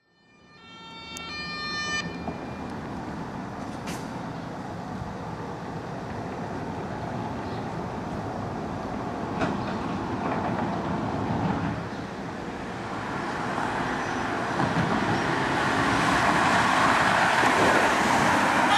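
Street traffic noise that swells over the last few seconds as a Volkswagen Transporter emergency doctor's vehicle drives up and passes close. An emergency-vehicle siren sounds briefly in the first two seconds.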